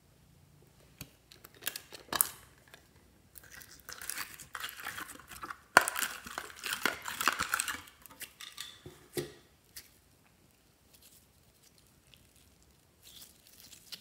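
Hands stretching and kneading glossy slime: sticky crackling and squishing, densest in the middle, after a few sharp clicks near the start.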